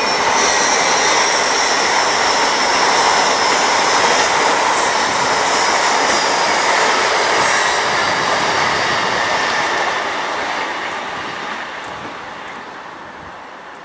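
LNER Azuma train, two coupled units, passing at speed: a steady rush of wheels on rail, with a high whine that slowly falls in pitch. It fades over the last few seconds as the train draws away.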